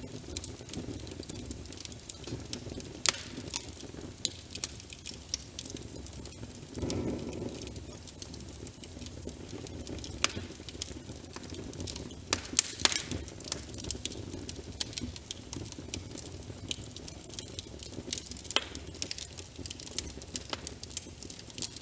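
Wood fire crackling, with frequent sharp pops and snaps, over a steady background of rain. A brief swell of low rushing noise comes about seven seconds in.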